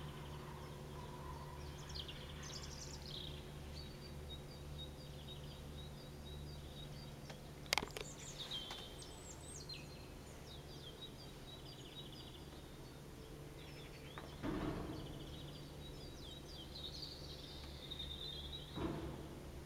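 Small birds chirping and twittering over a steady low hum. A sharp click comes about eight seconds in, and two short swells of noise come near the end.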